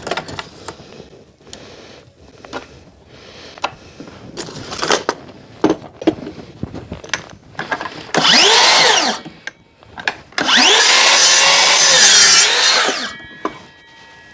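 Electric power saw cutting timber twice: a short run about eight seconds in, then a longer cut from about ten to thirteen seconds, the motor's pitch dipping under load and recovering, followed by the blade coasting down. Light knocks and clatter of timber being handled come before.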